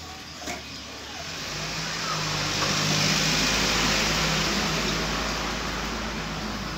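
A motor vehicle passing by, its engine noise swelling to a peak about three seconds in and then slowly fading, after a short knock near the start.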